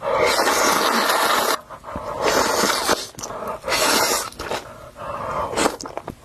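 Noodles being slurped loudly in long noisy pulls, each about a second or more, with short breaks between them.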